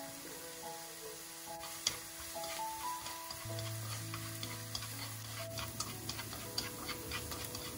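Diced onion and carrot slices sizzling in oil in a nonstick pan, stirred with wooden chopsticks that click and tap against the pan, the taps coming more often in the second half.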